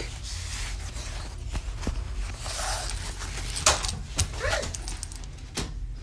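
Phone handling and movement noise with scattered knocks and clicks as the phone is carried and swung about.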